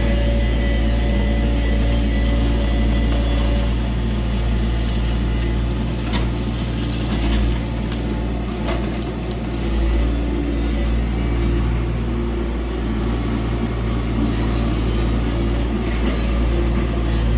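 Tata Hitachi EX70 excavator's diesel engine running steadily, with a couple of sharp mechanical clicks from the working machine about six and nine seconds in.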